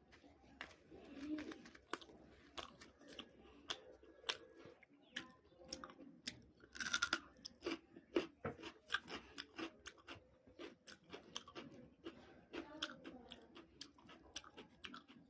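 Close-up chewing and mouth sounds of a person eating puri with chana dal sabji: irregular wet clicks and smacks, with one louder, longer crunchy burst about seven seconds in.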